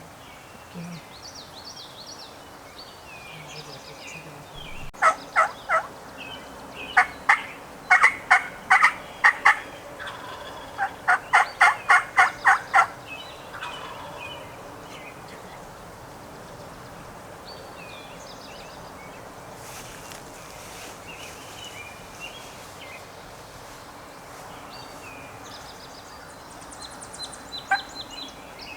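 Turkey yelping: three runs of sharp, evenly spaced notes, the last at about four notes a second, with more near the end. Small songbirds chirp faintly between them.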